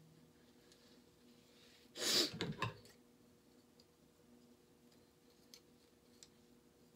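A brief, loud rushing burst, under a second long, about two seconds in, followed by a few faint clicks as a hair clip is fastened into dreadlocks.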